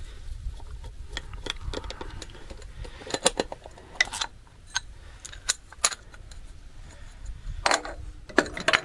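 Hands working the spark-plug leads and distributor cap of a GAZ-66's V8 petrol engine, with the engine off: scattered sharp clicks and light rattles of the parts being handled, most of them in the middle of the stretch.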